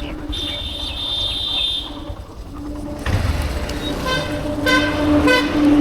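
Vehicle horns in street traffic: one long high-pitched beep near the start, then three short toots in quick succession about four seconds in, over a steady engine hum and road noise.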